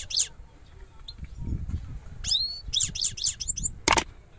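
Caged goldfinch singing in bursts of rapid, high twittering chirps with quick rising and falling sweeps, the longest burst starting about two seconds in. A sharp click sounds near the end.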